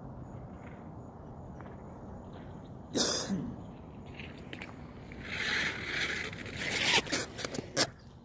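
Goaltender's gear scraping on wet plastic sport-court tiles close to the microphone: a short loud scrape about three seconds in, then a longer rasping slide, followed by a few sharp clicks near the end.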